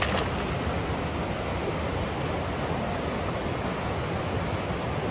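Steady rush of flowing water, with a short splash right at the start from young Japanese macaques swimming in the hot-spring pool.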